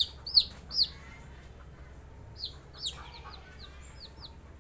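Chicken chicks peeping: a quick run of high, falling peeps in the first second, then after a short pause a softer run of peeps.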